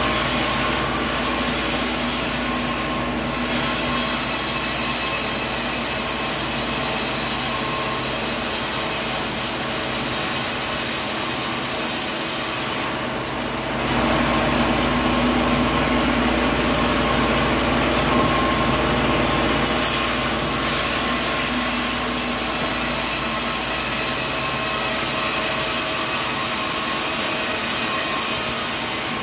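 Sawmill saw cutting through a coconut log, with the mill's motor running steadily underneath. The cutting noise eases briefly about 13 seconds in and again about 20 seconds in.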